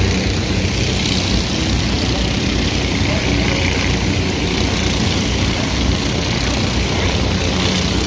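Racing kart engines running flat out in a steady, unbroken drone.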